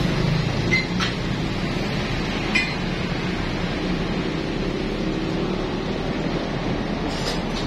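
Yanmar single-cylinder diesel engine running steadily, with a few light metallic clinks over it, about a second in, near three seconds and near the end.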